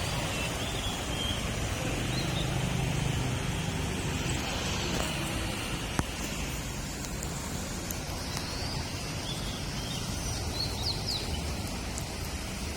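Street traffic ambience: a steady hum of vehicle engines and road noise, loudest about a couple of seconds in, with a few short high chirps and a single sharp click midway.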